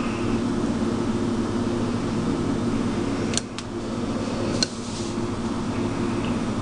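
Steady low hum of a running kitchen appliance, with three sharp clicks of a utensil against the metal tuna cans a little past the middle, two close together and one a second later, as cake batter is poured in.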